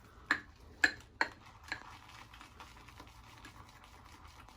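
Four sharp taps or clicks within the first two seconds, the second one loudest, then only faint background hiss.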